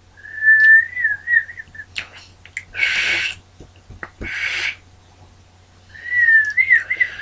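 A person whistling through pursed lips with a mouth stuffed full of crackers: a thin, wavering whistle held for over a second, then two breathy rushes of air with no tone, then another short wavering whistle near the end. The whistle is breaking down under the load of crackers.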